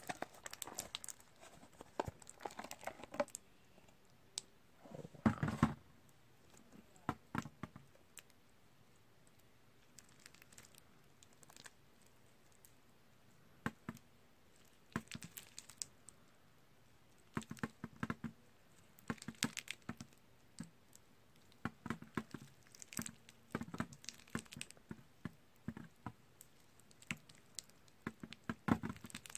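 Hands squeezing and kneading very sticky slime packed with Orbeez water beads: irregular crackling and sticky clicks in short bursts with quiet gaps, a louder squelch about five seconds in.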